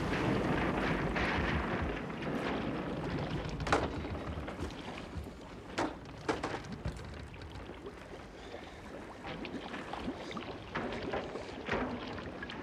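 Water sloshing and lapping around a half-sunk wooden fishing boat, louder for the first couple of seconds, with a few sharp knocks from the wreck scattered through it.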